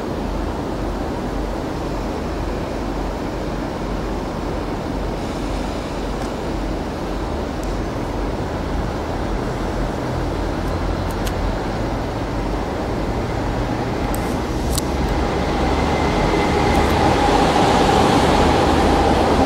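JNR KiHa 48 and KiHa 47 diesel railcars' engines running with a steady low rumble. The sound grows louder in the last few seconds, with a steady whine rising over it.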